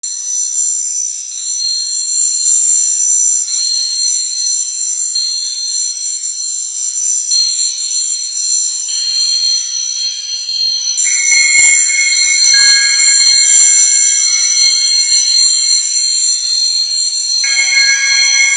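A wheezing sound made shrill and electronic by heavy digital effects (4ormulator V652). It plays as steady, piercing, alarm-like tones that step to new pitches every second or two. About eleven seconds in, lower tones join and it gets a little louder, and more tones enter near the end.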